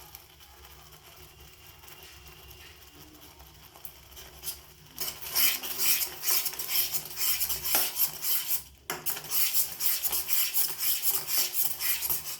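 A spoon stirring and scraping against a cooking pan of sago payesh, in quick repeated strokes. It starts about five seconds in, with a short break partway through.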